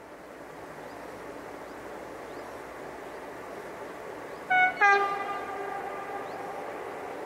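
Approaching freight train's locomotive sounding its two-tone horn: a short high blast about four and a half seconds in, then a longer, lower blast that trails off. Underneath, the sound of the train grows steadily louder as it nears.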